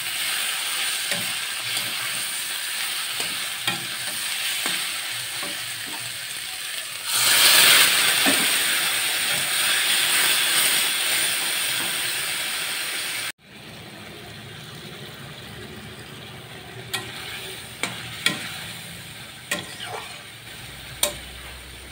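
Drumstick pieces sizzling in hot oil in a metal wok while a metal spatula stirs and scrapes them. About seven seconds in the sizzle suddenly grows louder as liquid goes into the hot pan. After an abrupt cut the sound is quieter, with a few sharp clinks of the spatula on the wok near the end.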